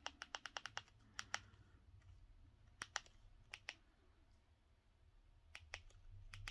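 Faint plastic clicks of remote-control buttons pressed to step through a Blu-ray disc menu: a quick run of about eight presses in the first second, then pairs and single presses every second or so.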